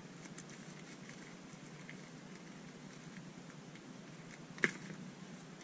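Faint scattered ticks and crinkles of hands working at a small product package, with one sharper click about two-thirds of the way through.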